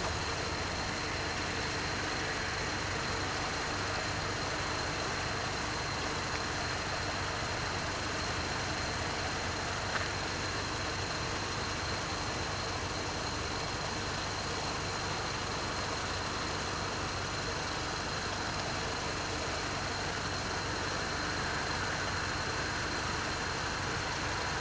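Steady rushing background noise with a faint, high, steady whine, without distinct events.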